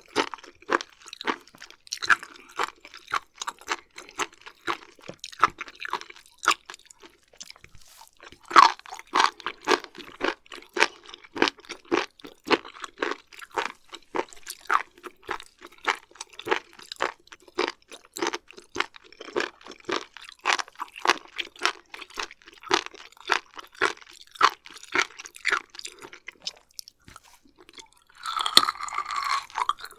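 Close-miked chewing of raw beef liver and beef omasum: a steady run of wet, crunchy mouth clicks, about three a second. Near the end there are about two seconds of a louder, denser wet chewing sound.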